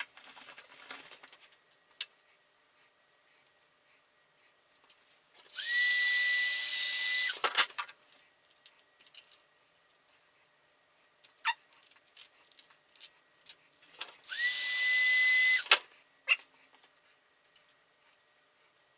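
Aerosol can of WD-40 spraying in two hissing bursts, the first about two seconds long and the second a little shorter, each with a thin whistle that rises as the spray starts. Light clicks and knocks of parts being handled fall in between.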